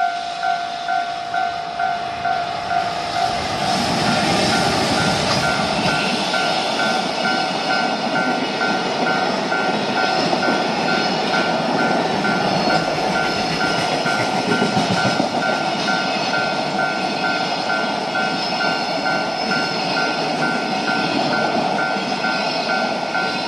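A JR Freight container train hauled by an electric locomotive passing, its wheels running loudly on the rails from about three seconds in, under a level-crossing alarm ringing in a fast, even, repeating two-tone pattern.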